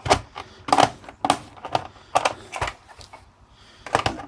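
Sharp plastic clicks and knocks at irregular intervals, about seven in all, from an old landline telephone being taken apart by hand.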